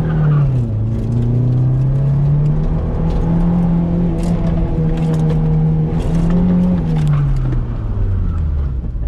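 Toyota MR2's naturally aspirated engine under load during an autocross run, over road and wind noise. Its pitch drops shortly in, climbs and holds through the middle, then falls after about seven seconds as the revs come down.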